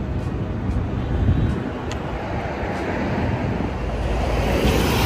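Outdoor rumble of wind buffeting the microphone, mixed with road traffic; the noise grows louder and hissier in the last second or so, as of a vehicle drawing near.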